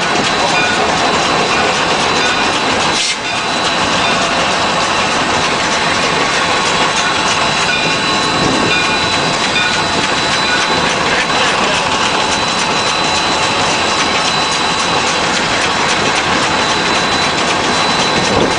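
Cab noise of the Shay No. 9 geared steam locomotive under way: a loud, steady mechanical din with a faint steady high tone, dipping briefly about three seconds in.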